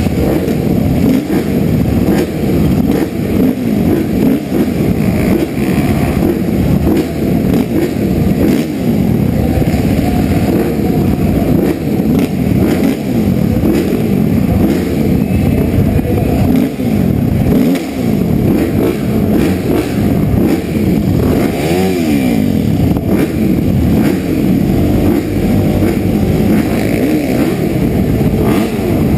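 A line of motocross bikes, among them a Suzuki RM-Z450 four-stroke, idling and revving at the starting gate. Several engines rise and fall in pitch over one another.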